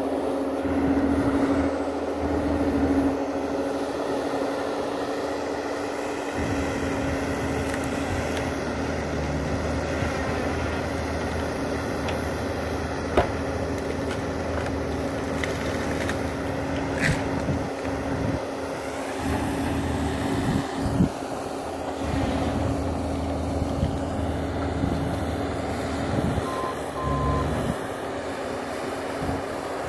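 Bobcat compact track loader's diesel engine running steadily at working revs with a constant hum, with a sharp knock about 13 seconds in and a few lighter knocks later.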